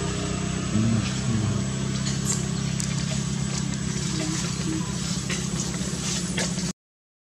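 A steady low motor hum with faint scattered clicks over it, cutting off suddenly near the end.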